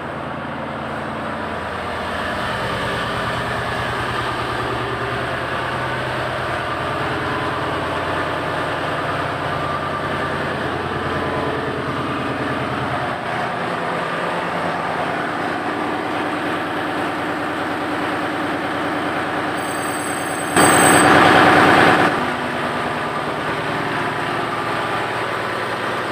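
Steady drone of running ship's engine-room machinery, with a loud burst of noise lasting about a second and a half some twenty seconds in.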